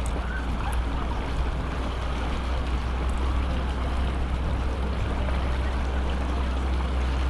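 Boat engine running steadily, a low rumble under a wash of water noise.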